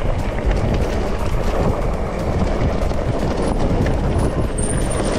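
Mountain bike rolling over a rough trail: a steady rumble of tyres on the ground, with scattered clicks and rattles from the bike.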